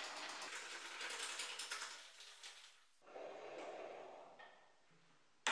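Homemade table saw's hand wheel being cranked, turning the blade's height/tilt screw mechanism with a rapid ratcheting, gear-like ticking. It fades and gives way to softer turning after about three seconds, with a sharp click at the very end.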